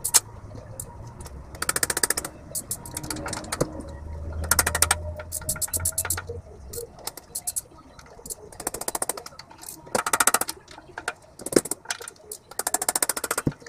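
Several short bursts of rapid clicking, like a ratchet wrench working bolts on the cylinder head, with a couple of single sharp knocks near the end.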